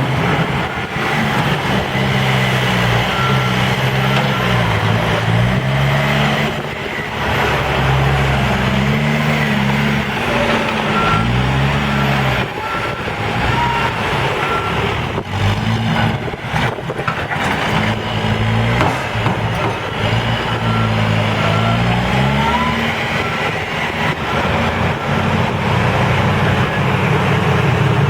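Case 590 Super N backhoe loader's diesel engine revving up and down as it works a load, with a vehicle backup alarm beeping in three separate runs. A few clunks come near the middle.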